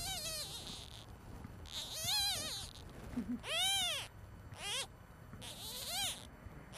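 A newborn two-faced kitten mewing: about five thin, high-pitched cries, each under a second long and rising then falling in pitch, with short pauses between.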